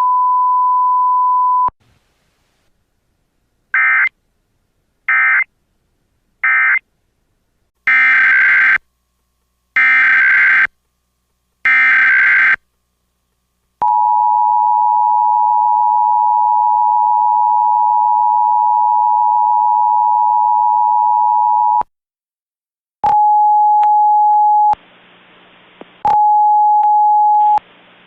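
Emergency Alert System tones: a steady beep ends about two seconds in. Then come three short warbling digital data bursts and three longer ones about a second each, like SAME header bursts. These are followed by the two-tone EAS attention signal, held for about eight seconds. Near the end, two shorter steady tones alternate with bursts of radio static, and another steady tone starts right at the end.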